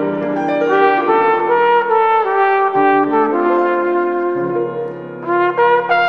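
Flugelhorn playing a slow melody of held notes over a recorded accompaniment. The sound drops away briefly about five seconds in, then the next phrase begins.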